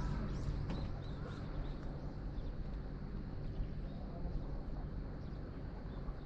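Low steady outdoor rumble, with faint high chirps in the first few seconds.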